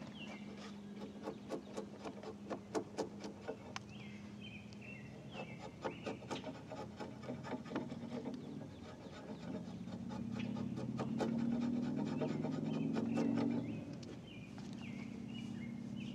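Broad timber-framing chisel paring the end grain of a fresh timber rafter joint by hand, in quick runs of short scraping strokes. Birds chirp now and then, and a low steady hum swells for a few seconds past the middle.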